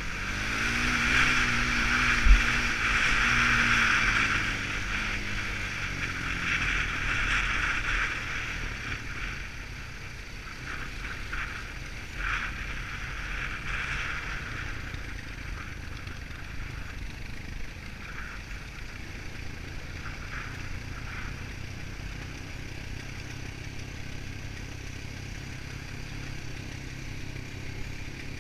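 Quad bike engine running while riding along a wet track, its note falling a few seconds in. A loud hiss over the engine for the first several seconds and a single thump about two seconds in; after that the engine runs steadier and quieter.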